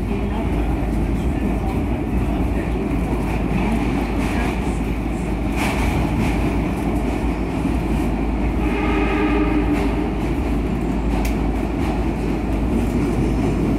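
SEPTA Broad Street Line subway car (Kawasaki B-IV) running through the tunnel, heard from inside the car: a steady, loud rumble with a few short clicks from the wheels on the rails.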